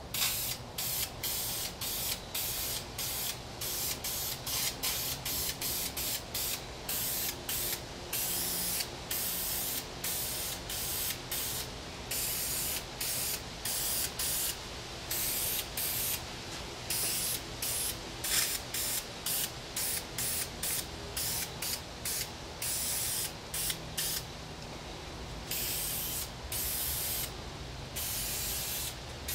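Aerosol can of Deft lacquer spraying in many short hissing bursts, with some longer sprays mixed in.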